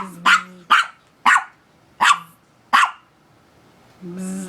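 Dog barking sharply, about six quick barks in the first three seconds, then a short, low, steady growl near the end.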